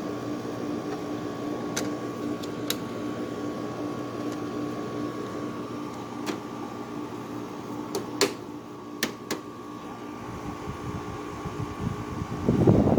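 Air conditioner running with its compressor on: a steady hum carrying a low and a higher held tone, with a few light clicks and a louder rushing swell near the end.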